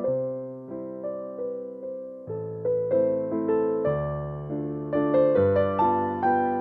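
Background music: a piano or electric piano playing gentle chords, each struck note dying away before the next.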